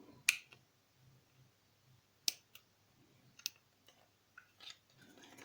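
Scissors snipping a thin plastic Kinder egg capsule: a handful of separate sharp clicks, the loudest about a quarter-second in and the rest spread over the following four seconds.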